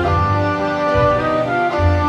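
Instrumental background music: slow, held melody notes over a deep bass line.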